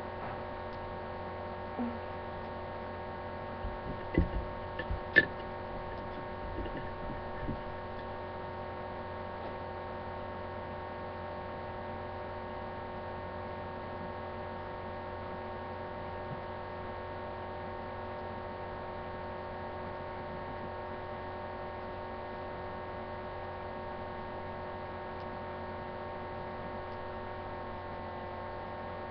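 Steady electrical hum made of several held tones, unchanging throughout. A few light knocks and clicks come between about two and eight seconds in, the sharpest around five seconds.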